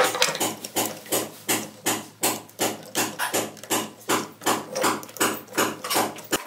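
Hard plastic parts of a homemade RC truck chassis clicking and knocking as frame rails and their screws are taken apart and refitted by hand: a quick, fairly even run of sharp taps, about three a second.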